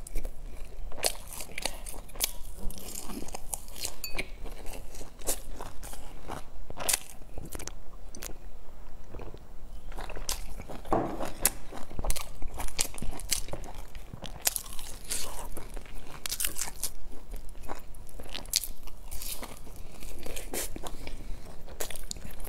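Chewing and crunching of pan-fried dumplings with crisp browned crusts: an irregular run of crisp crackles and bites.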